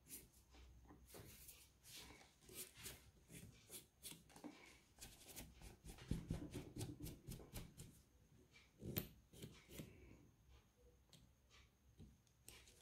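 Faint, quick strokes of a soft nail dust brush sweeping loose acrylic powder off a cured nail, with a few light handling ticks.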